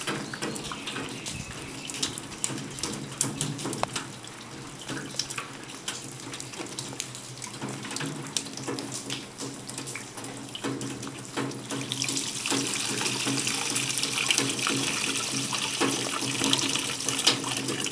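Water trickling and splashing down a copper cup-style rain chain, dripping from cup to cup into a metal tub below. The flow grows louder and brighter about twelve seconds in.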